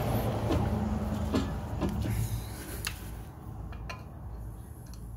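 A low steady motor hum, likely a vehicle engine, that fades over the first two and a half seconds, with a few sharp metallic clicks of tools and brake parts being handled.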